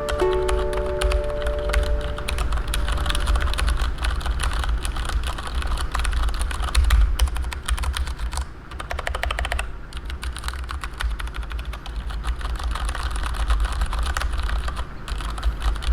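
Typing on a Keychron K8 tenkeyless mechanical keyboard fitted with Cherry MX Clear tactile switches: a rapid, continuous run of key clacks.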